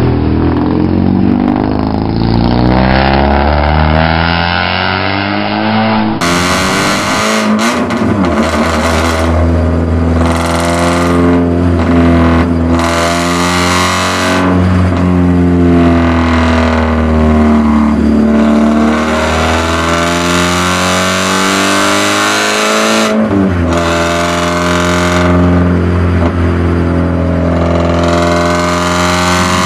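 Race car engine heard from inside the cabin at speed, its revs climbing and dropping as the driver works through the gears, with bursts of hiss. During the first few seconds, before the onboard sound, a car engine is heard revving from trackside.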